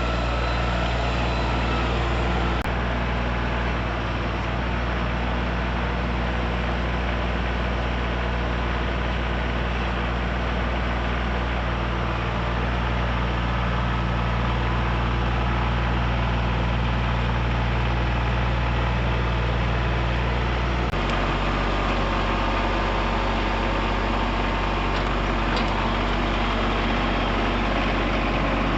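An engine running steadily at a constant speed. Its tone changes abruptly about three quarters of the way through.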